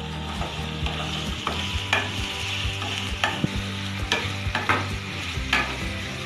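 Diced carrots and green beans sizzling in hot oil in a non-stick kadai while a wooden spatula stirs them, scraping and knocking against the pan several times over the steady sizzle.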